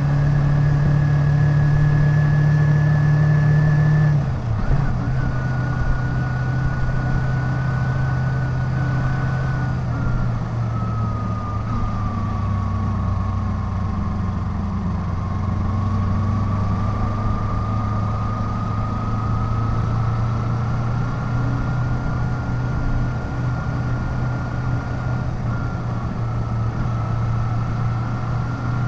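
Kawasaki Ninja 250's parallel-twin engine running as the bike rides along. Its note drops suddenly about four seconds in, then sinks and climbs gently again through the middle.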